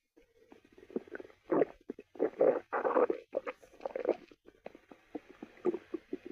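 Stomach growling: an irregular run of gurgles and short bubbly pops, fullest between about one and a half and three seconds in.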